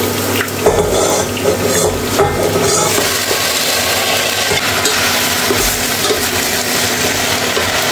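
Chicken pieces sizzling in hot oil in a frying pan, with knocks and rustling in the first few seconds as chopped napa cabbage goes into a steel pot and is stirred with a wooden spatula.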